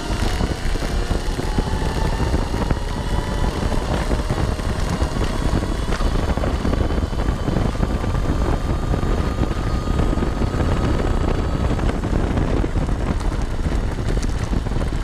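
Electric trail motorcycle accelerating flat out: the motor's whine climbs slowly in pitch for about twelve seconds, then fades, as it nears 90 km/h. Heavy wind rush on the microphone runs underneath.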